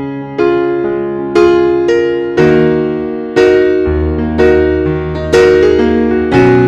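Background music: slow piano-like chords struck about once a second, each fading away before the next.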